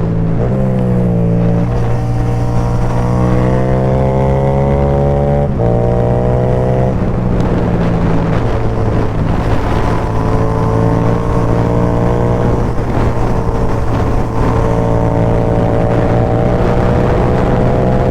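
Yamaha MT-07's parallel-twin engine running loud through an Akrapovic carbon exhaust with the dB killer removed, under hard acceleration. Its pitch climbs and drops sharply at a gear change about half a second in and again about five and a half seconds in, then falls off and climbs again with the throttle.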